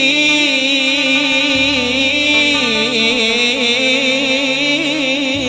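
Arabic mawwal music: an ornamented melody line with heavy vibrato over a sustained low drone that shifts note about a second and a half in.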